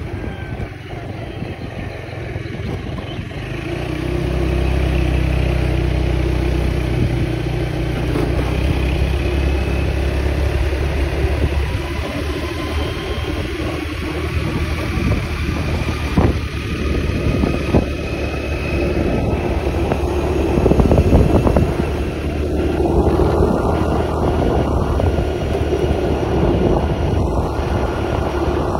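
A motor vehicle engine running steadily, with wind on the microphone; the rumble swells about four seconds in.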